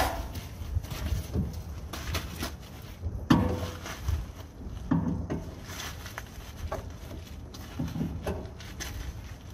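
Scattered knocks and clicks of a mechanic handling tools and moving about at a semi truck's front suspension, over a low steady rumble. The loudest knock comes about three seconds in, with a few lighter ones after it.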